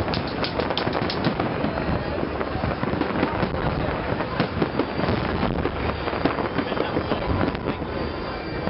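Fireworks bursting in a dense, continuous barrage of bangs and crackling, thickest in the first second or so.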